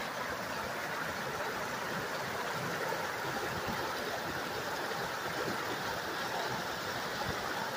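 Mountain river rushing steadily over rocks and down a small waterfall.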